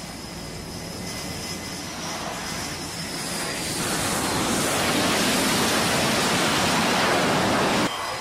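F/A-18 fighter jet's engines coming in to land on a carrier flight deck. The jet noise swells about halfway through and stays loud before cutting off sharply near the end.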